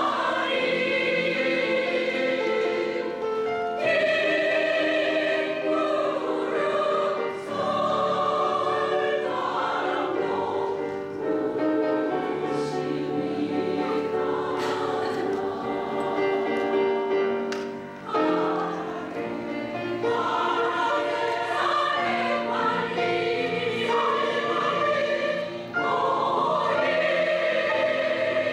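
A women's choir singing in several voice parts, holding long notes in phrases with short breaths between them.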